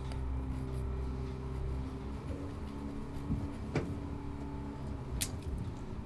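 An engine running steadily, its note shifting slightly about two seconds in, with a couple of sharp knocks or clicks late on.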